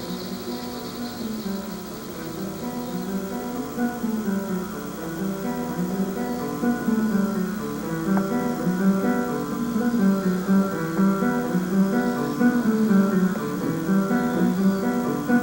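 Acoustic guitar playing a run of plucked notes, slowly growing louder.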